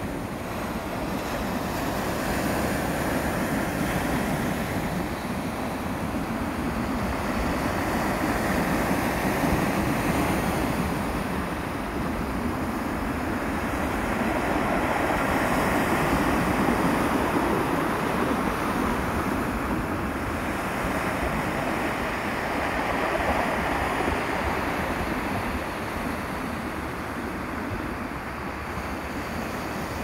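Small waves breaking and washing up a round-pebble (mongdol) beach, the surf swelling and easing in slow surges every several seconds, with pebbles rolling in the wash.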